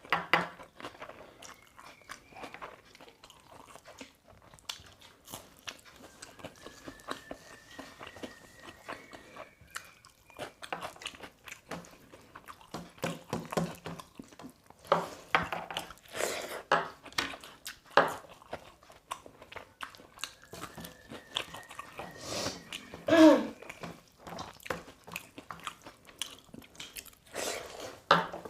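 Close-up eating sounds: chewing, lip smacks and crunching as rice with dal and raw onion is eaten, with many small wet clicks. About three-quarters of the way through comes a brief voice-like sound, the loudest moment.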